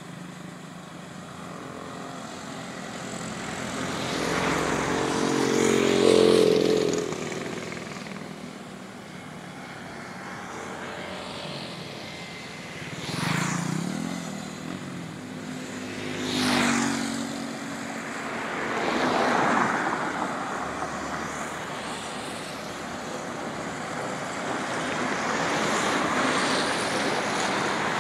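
Several road vehicles driving past one after another, each engine and its tyre noise swelling as it nears and fading as it goes by. The loudest pass comes about six seconds in.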